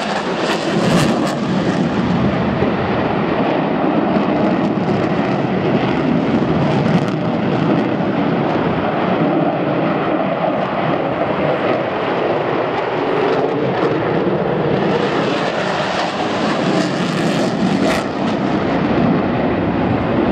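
A fixed-wing aircraft in flight, its engine noise steady throughout.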